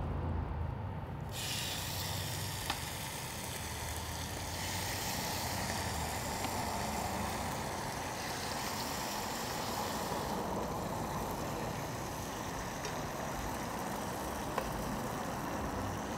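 Braised pork carnitas dropped into hot rendered pork fat in a cast iron skillet: a sizzle starts suddenly about a second in and then runs steadily, with a couple of faint clicks from the tongs.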